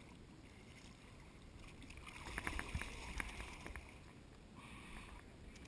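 Water splashing and sharp knocks at the side of a boat while a large black drum is being landed, bunched from about two seconds in for about two seconds, over a steady low rumble.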